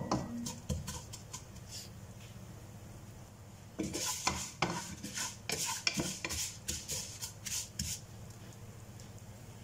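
Wooden spatula stirring vermicelli frying in oil in a non-stick pan: scattered scrapes and knocks against the pan, coming thick and fast for a few seconds in the middle as the noodles are turned over and toasted brown.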